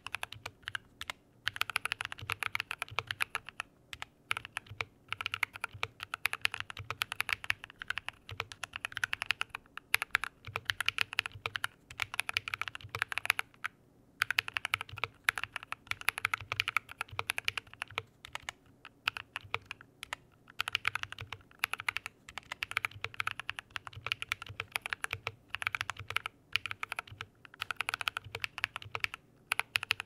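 Continuous touch typing on a Drop CTRL mechanical keyboard fitted with Drop + Invyr Holy Panda tactile switches and DCX doubleshot ABS keycaps. Quick runs of keystrokes are broken by short pauses, the longest about halfway through.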